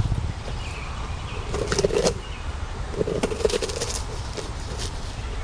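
Tigon licking and gnawing at a bone: bursts of wet smacks and sharp clicks, one about two seconds in and a longer one about three seconds in.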